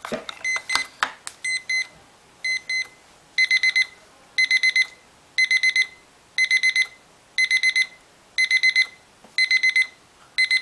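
Jalga quartz travel alarm clock's electronic beeper sounding its alarm, a high-pitched beep repeating once a second. It starts as short pairs of beeps and, about three and a half seconds in, steps up to louder groups of four rapid beeps: the progressive alarm that gets louder until you wake up. A few knocks from handling the clock come at the very start.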